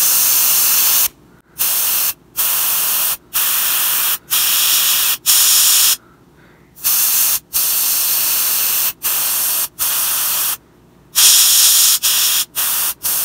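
Airbrush spraying black paint in short bursts: a steady hiss that stops and starts again about a dozen times as the trigger is pressed and released for short freehand strokes.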